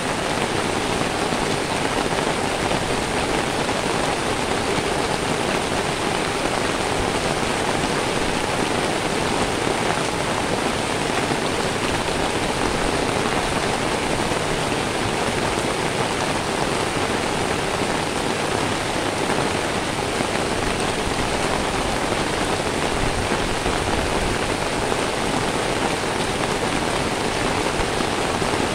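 Steady rain falling on wet paved ground, an even unbroken hiss that neither builds nor fades.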